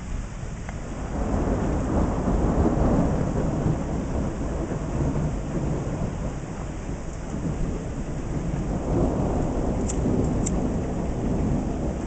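Rolling thunder rumbling over steady rain, swelling about a second in and again near nine seconds. A few light ticks come near the end.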